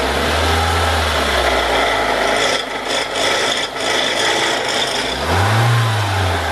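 2001 Infiniti G20's SR20DE four-cylinder engine revved twice from idle: one rev held for the first second or two, then a shorter rise and fall near the end. It is a run-up to test the newly replaced front motor mount.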